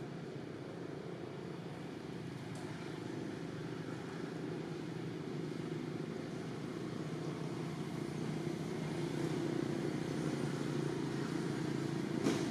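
Low steady rumble of distant motor traffic, slowly growing louder, with one sharp click near the end.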